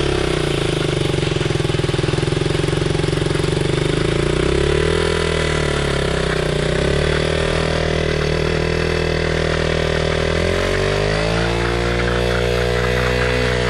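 KTM RC motorcycle engine held at high revs during a stationary burnout, spinning the worn-out rear tyre against the ground. The revs sag about five seconds in, then climb again around ten seconds.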